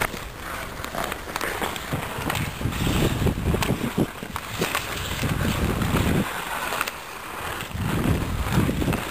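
Ice skate blades gliding and scraping on rink ice, with uneven wind noise on the microphone from the moving camera. The wind is loudest in the middle and again near the end, easing off briefly in between.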